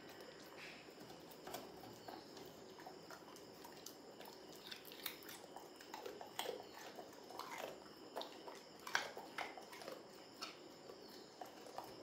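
A Labrador retriever chewing pieces of carrot with irregular crisp crunches, coming thickest between about five and ten seconds in.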